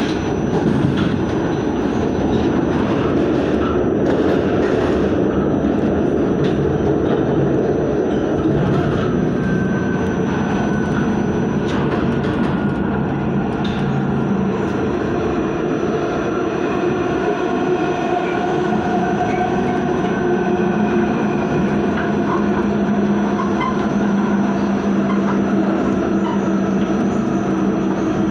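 New York City subway train running along the track: a steady rumble of wheels on rail, overlaid by faint motor whine tones that shift in pitch as the train runs.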